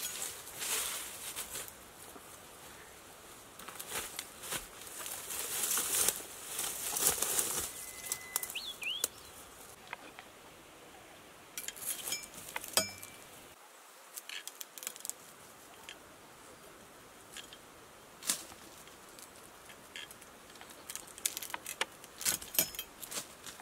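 Leafy branches and bamboo rustling as a long-handled pole sickle is worked among them to hook and cut young spring tree shoots, with a few sharp snaps and clicks, most of them in the second half. A bird chirps briefly about eight seconds in.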